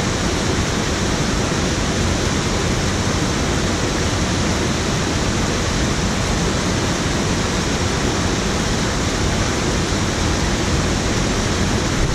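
Water pouring over a low concrete weir into a pool: a steady, unbroken rush.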